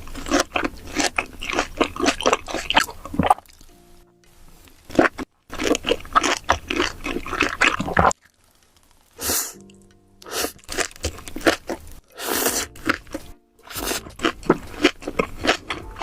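Close-miked chewing of beef large intestines: wet, crackly bites and chewing in dense bursts of a few seconds, broken off abruptly several times by cuts between eaters. Faint steady tones sound in some of the pauses.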